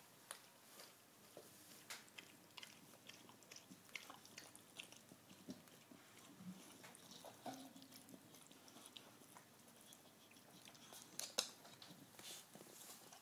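Staffordshire bull terrier licking food out of a Spinone's beard: faint wet licks and small mouth clicks, with a louder cluster of clicks about eleven seconds in.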